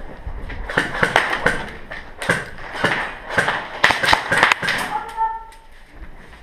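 A quick, irregular run of sharp knocks and taps, about a dozen over four seconds, followed by a brief pitched tone near the end.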